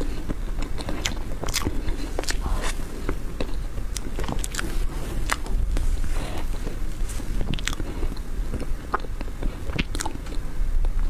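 Close-up eating sounds of a person eating soft whipped-cream sponge cake from a spoon: irregular wet mouth clicks and smacks while chewing.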